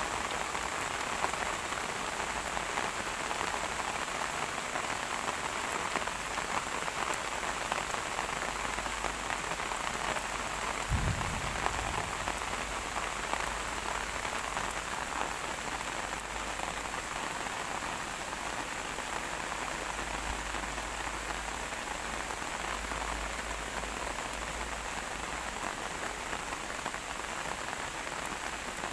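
Steady rain falling, a dense even patter of drops, with a brief low thump about eleven seconds in.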